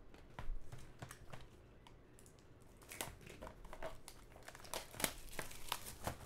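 Plastic shrink wrap being torn and peeled off a trading card box, crinkling in short crackles, sparse at first and busiest from about halfway on.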